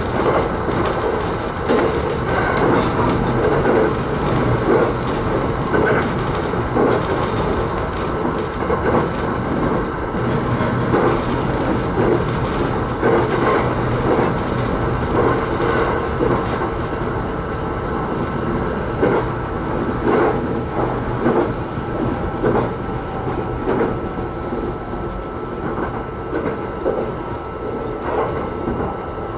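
E129-series electric multiple unit running at speed, heard from inside the front car: a steady rumble of wheels on rail with irregular clicks over rail joints, and a thin steady tone above it.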